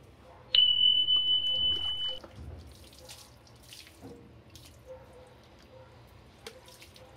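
Water splashing and dripping as a wet pug is rubbed down and rinsed from a plastic jug on a tiled floor. A loud, steady, high-pitched beep sounds once, about half a second in, and lasts about a second and a half.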